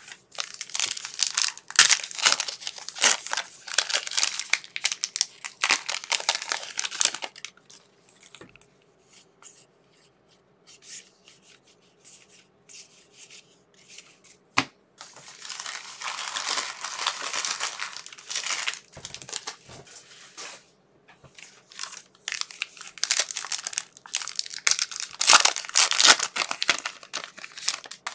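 Trading-card pack wrappers being torn open and crinkled, in three long spells of crackling, with scattered sharp clicks in the quieter gaps between.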